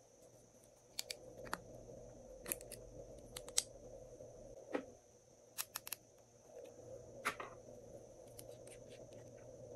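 Faint, irregular sharp clicks and taps of small plastic pieces being handled, a small plastic toy figure among them.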